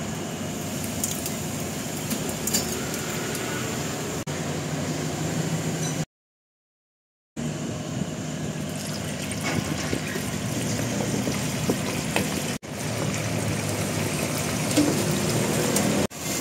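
Pork pieces deep-frying in a basket in a commercial fryer, the oil bubbling and sizzling steadily, broken by a short silence about six seconds in.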